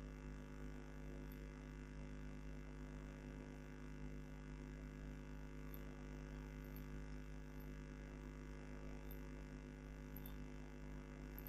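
Faint, steady electrical mains hum: a low buzz with several even tones stacked above it, over a light hiss, unchanging throughout.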